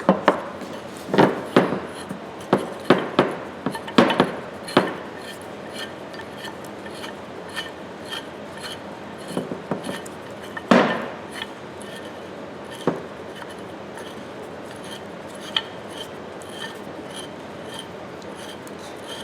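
Metal scraping and knocks of a grimy Ridgid pipe wrench being taken apart: a cluster of sharp knocks and scrapes in the first five seconds, a few more around ten and thirteen seconds in, then only faint scattered ticks.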